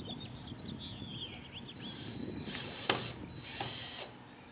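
A tool's mechanism ratcheting and whirring with a thin high whine for about two seconds, with one sharp click near the middle of it, while birds chirp just before it starts.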